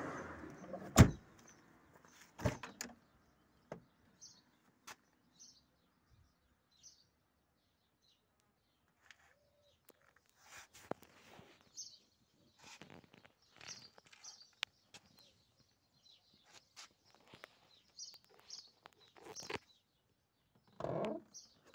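A Mercedes 190E's car door shut with a loud thud about a second in, followed by a lighter knock. Scattered small clicks and handling knocks follow, with birds chirping now and then.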